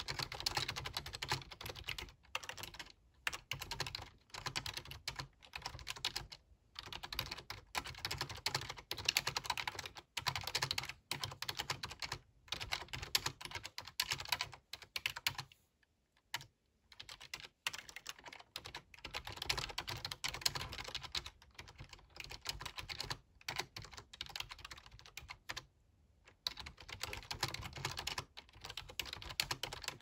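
Typing on a full-size computer keyboard: quick runs of key clicks lasting a few seconds each, broken by brief pauses, the longest about halfway through.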